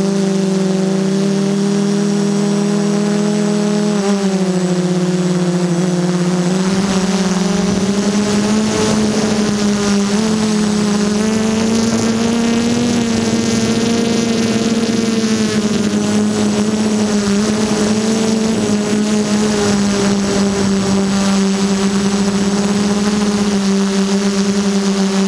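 F330 quadcopter's electric motors and propellers running with a steady whine, heard up close from the camera on the drone. The pitch steps and shifts slightly about four and seven seconds in as the throttle changes. A rushing wind noise joins from about seven seconds in.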